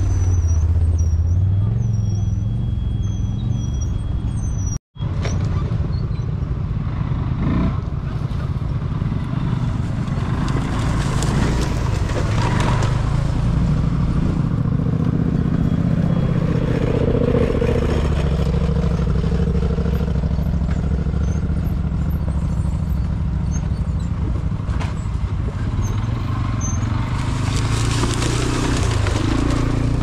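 ATV engine running at low revs, its note rising and falling with the throttle on rough trail. The sound cuts out for a moment about five seconds in.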